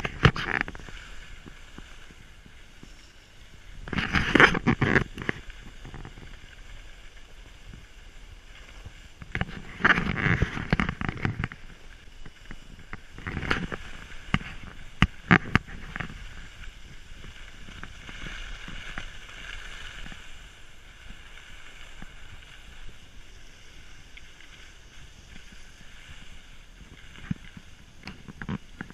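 Skis scraping and hissing over packed snow on a downhill run. Louder scraping surges come during turns, the strongest about four and ten seconds in, with a few sharp clicks a little after the middle.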